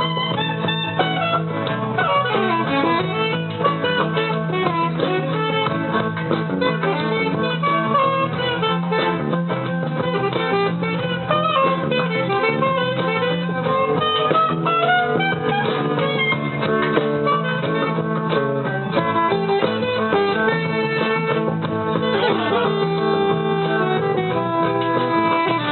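A band playing, led by a guitar with bent, gliding notes over a steady accompaniment.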